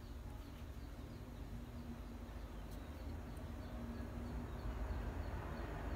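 Faint background ambience: a low rumble that grows slightly toward the end, with faint high chirps repeating about three times a second.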